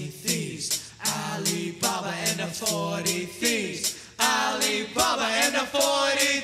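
Background music: a song with sung vocals over a steady beat.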